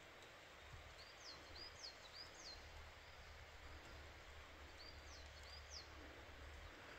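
Quiet forest background with a small bird giving short high chirps in two little groups, about a second in and again about five seconds in.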